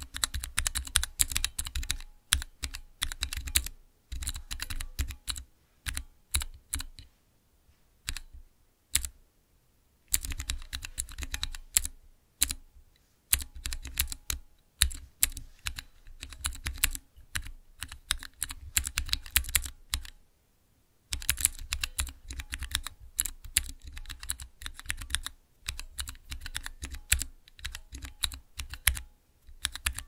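Typing on a Cherry MX mechanical keyboard: rapid runs of sharp key clicks with a low clack as each key bottoms out. The runs are broken by short pauses, the longest about 8 to 10 seconds in and around 20 seconds in.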